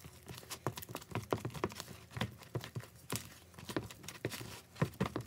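A kitchen utensil mixing soft yogurt dough in a bowl, making an uneven run of light knocks and taps, a few a second.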